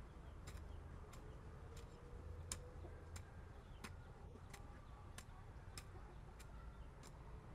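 A faint, regular series of sharp taps or knocks, about three every two seconds, over a low steady rumble.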